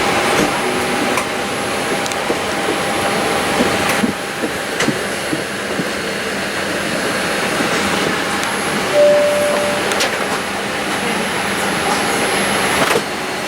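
Steady rush of air through the cabin ventilation of a parked Boeing 787-8 airliner, with scattered light clicks and knocks and one short steady tone a little over halfway through.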